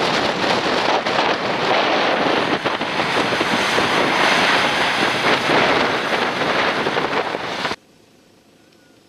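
Nissan Patrol off-roader driving through deep mud, its engine under load mixed with heavy wind buffeting on the microphone. The noise stops abruptly near the end, leaving only a faint steady hum.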